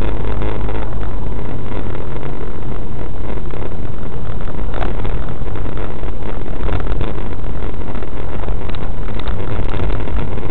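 Car engine running with road noise, heard from inside the cabin while driving: a loud, steady rumble.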